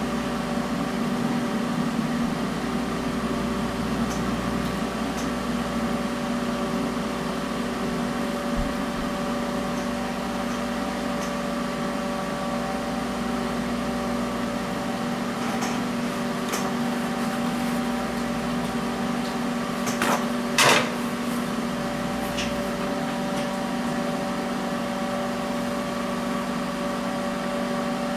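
Microwave oven running with a steady hum. A few faint ticks, and two sharp cracks close together about twenty seconds in.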